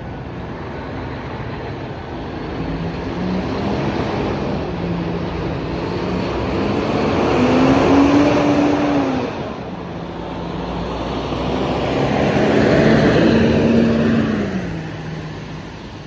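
Heavy truck engine running, its pitch and loudness swelling twice and dropping back each time.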